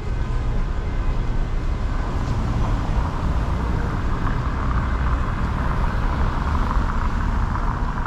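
City street ambience: a steady low rumble of road traffic, with a hiss swelling about three seconds in as a vehicle passes.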